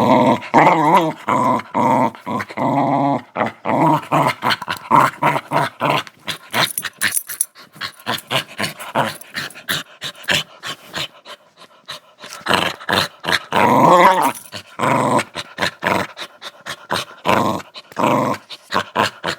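Small dog growling in repeated bouts, with a wavering pitch. It is loudest near the start and again about two-thirds through, with a quieter stretch of short sharp sounds in between.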